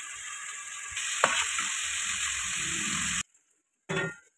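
Whole brinjals frying in spiced oil in a wok: a steady sizzle that gets louder about a second in, with a single sharp tap just after. The sizzle cuts off abruptly near the end, and a short sound follows.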